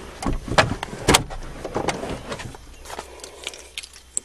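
Scattered clicks and knocks of handling in a car cabin, with keys jingling and a key going into the Subaru's ignition near the end; the engine is not yet running.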